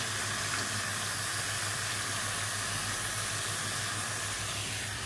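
Kitchen tap running steadily, its stream splashing over a halved leek and into a stainless-steel sink as the leek is rinsed.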